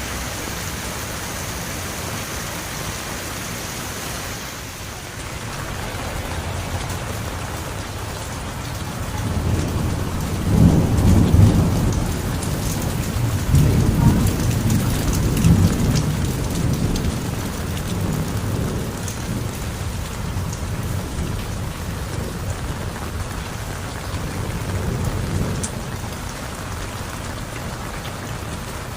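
Heavy rain falling steadily. A long roll of thunder builds about a third of the way in, is loudest around the middle, and fades away over the next ten seconds or so.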